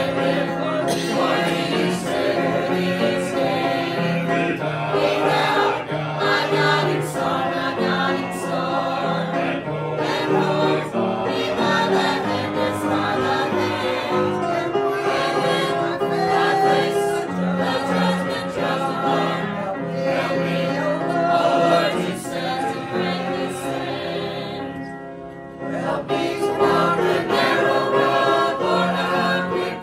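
A choir singing a hymn with musical accompaniment, broken by a short pause between phrases about 25 seconds in.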